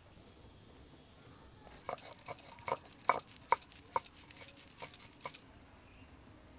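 Stone roller crushing overnight-soaked split peas on a stone grinding slab (sil-nora): a quick run of sharp cracks and clicks starts about two seconds in and stops about five seconds in.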